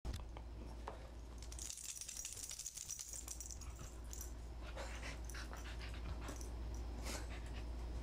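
Room tone with a steady low hum, a stretch of breathy hissing about two seconds in, and scattered soft rustles and light clicks as a plush hand puppet is handled and turned about.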